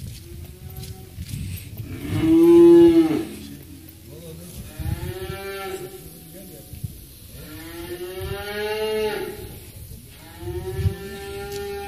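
Cattle mooing: a faint moo, then four long moos one after another, the loudest about two seconds in.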